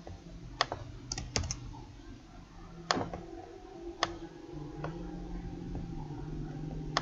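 A handful of separate clicks from a computer keyboard and mouse, spread over several seconds as text is copied and pasted, under a faint steady low hum.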